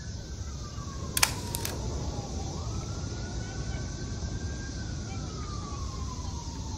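Emergency vehicle siren in a slow wail, climbing and sinking in pitch about every five seconds, over a steady low rumble of street traffic. A sharp double click about a second in is the loudest moment.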